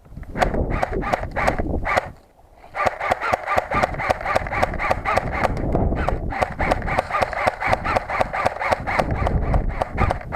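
Quick footsteps crunching on loose volcanic gravel, about four steps a second. They stop briefly about two seconds in, then carry on at a steady pace.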